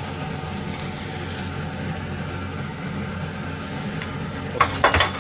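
Steady low kitchen hum and hiss, then a quick run of three or four sharp knocks of utensils or dishes being handled on the counter near the end.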